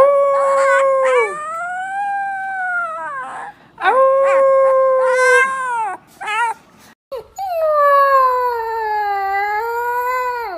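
Young puppies howling: three long, high howls, each holding a pitch and then sliding down, with a short break after about three seconds and another around six to seven seconds in.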